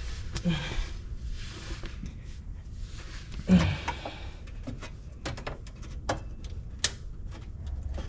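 Irregular small clicks and light metallic taps of hand tools and wire being worked under a car, with one louder knock about three and a half seconds in.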